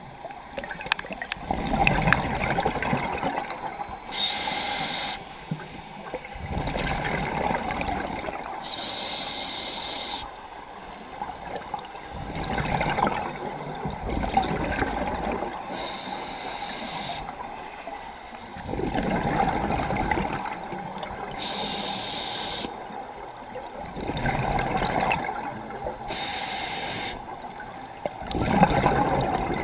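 A scuba diver breathing through an open-circuit regulator: a short hissing inhale followed by a bubbling exhale, repeating about every five seconds, heard through an underwater camera housing.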